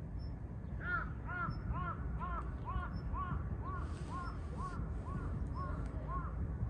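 A bird calling in a steady series of about a dozen short, arched calls, roughly two a second, starting about a second in.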